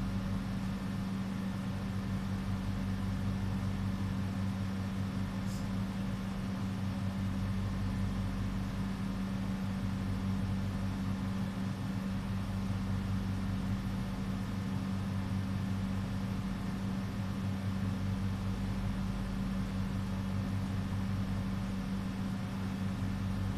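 Steady low hum of a running motor or electrical appliance, unchanging throughout, over a faint hiss.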